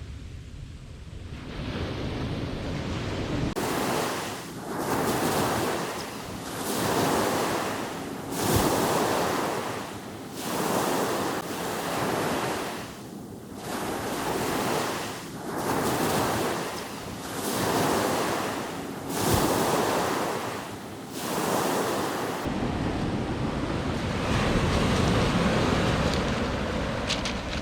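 Surf and wind noise on the shore, a steady rush with no tone. From about four seconds in to about twenty-two seconds in it swells and falls again and again, roughly every second or so.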